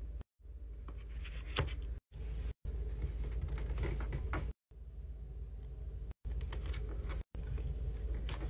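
Paper being folded over cardboard and taped down by hand: scattered rustles, scratches and crinkles over a low hum, with a sharp tap about a second and a half in. The sound cuts out abruptly for a moment several times.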